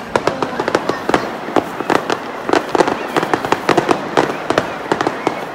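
Aerial fireworks shells exploding in a rapid barrage of sharp bangs and crackles, several a second.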